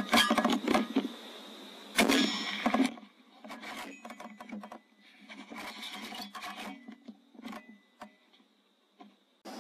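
A single suppressed .243 rifle shot about two seconds in, preceded by a quick cluster of clicks and knocks from handling the rifle and scope. Scattered lighter clicks and taps follow.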